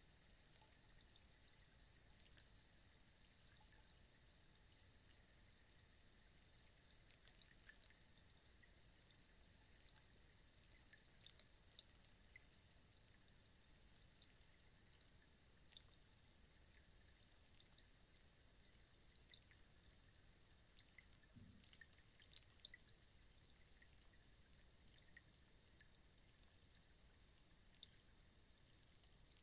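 Faint rainstick: a steady, soft patter of many tiny ticks, like rain or trickling grains, with one soft low thump about two-thirds of the way through.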